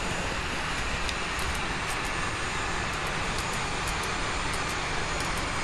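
Steady cockpit noise of a parked Airbus A380: an even rush of air and machinery, with a faint high whine slowly falling in pitch and a few light ticks.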